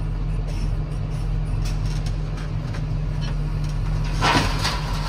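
Tractor engine running steadily, heard from inside the cab while a tipping trailer is raised to tip off its load. About four seconds in there is a brief louder scrape or clatter.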